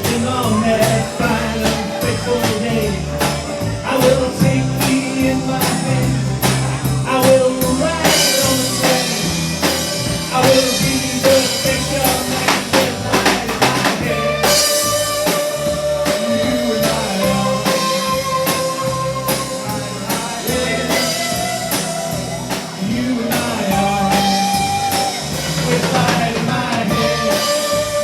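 Live folk-rock band playing an instrumental passage with guitar and drum kit, a lead instrument holding long melody notes over the rhythm.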